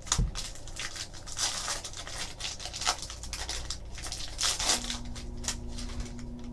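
Plastic wrapping crinkling and tearing as a sealed trading-card hobby box and its pack are opened by hand, in short irregular rustles. A faint steady hum comes in a little past the middle.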